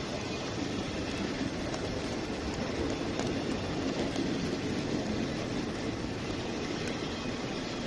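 Freight train rolling past with a steady rumble that swells slightly midway, under the constant noise of heavy hurricane rain and running water.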